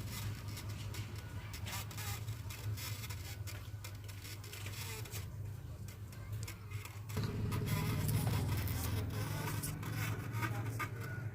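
A song played through a small DC motor used as a speaker driver with a speaker cone fitted to it: a buzzing, rattly, very low-quality sound in which the music is not clear. It grows louder about seven seconds in.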